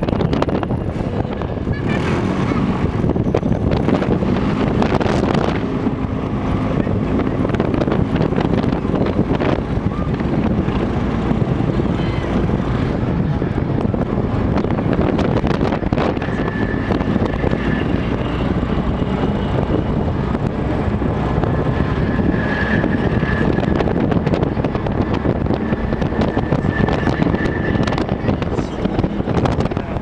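Wheeled armoured vehicle driving along an unpaved road, heard from on top of the hull: a steady engine and tyre rumble, with a faint high whine that comes and goes in the second half.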